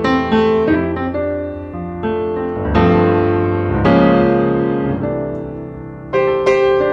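Background solo piano music: slow single notes and chords, each struck and left to ring and fade.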